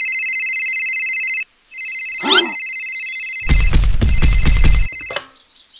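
Electronic mobile-phone ringtone trilling, ringing twice with a short break between. About two seconds in, a quick rising sweep cuts across it, and a loud, noisy low-pitched burst follows for about a second and a half.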